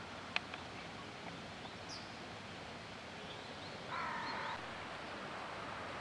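A crow gives one short caw about four seconds in, over a steady outdoor background hiss with faint chirps of small birds. A sharp click comes just after the start.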